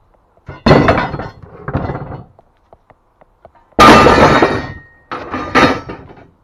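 Steel scaffold components clattering and clanging together in four loud bursts, with a brief metallic ring after the third.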